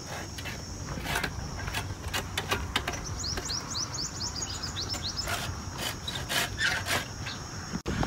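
Rural outdoor ambience: a steady high insect drone, with a quick run of about a dozen short falling bird chirps around the middle, over scattered rustles and clicks.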